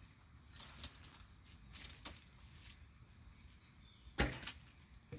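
A 55 lb horse bow shot: one sharp string-release thump about four seconds in, after a few faint clicks. Faint bird chirps behind.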